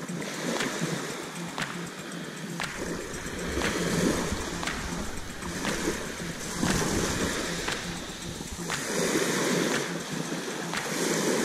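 Small waves washing up the beach and sliding back, swelling every few seconds, under background music that ticks out a steady beat about once a second.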